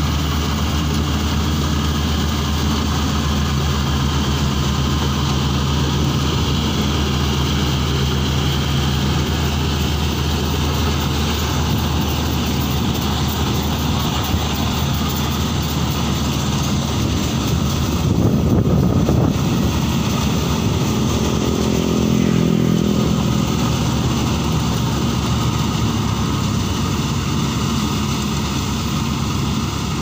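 Tracked rice combine harvester running steadily while it cuts and threshes rice, its engine drone constant. It grows briefly louder twice, about two-thirds of the way through.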